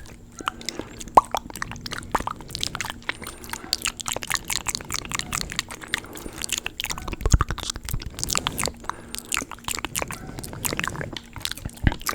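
Water sloshing and plopping inside a small jar, a dense, irregular run of small clicks and splashes.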